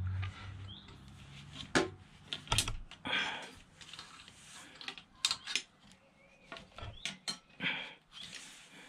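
Hands working a silicone coolant hose and its metal clamp onto a motorcycle engine fitting: irregular sharp clicks and knocks with short rubbing sounds.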